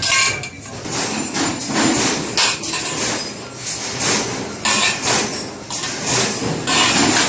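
Irregular metallic clanks and rattles of steel pipe and tooling on a manual rotary pipe-bending machine as a pipe is worked around its die.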